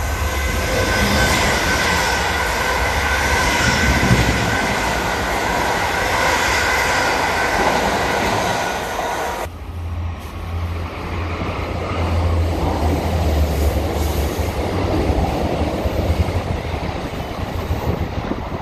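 A passenger train running through the station at speed: a loud rush of wheels on rail with a steady high squeal. About nine and a half seconds in it drops away abruptly, giving way to the quieter, lower rumble of a train moving on the far tracks.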